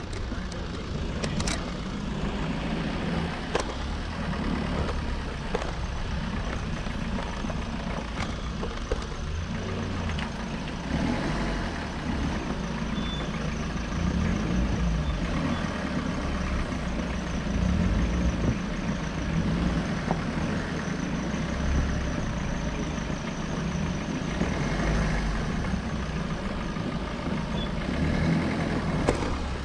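A motor vehicle's engine running steadily over a rough road, with a low rumble and continuous road and wind noise.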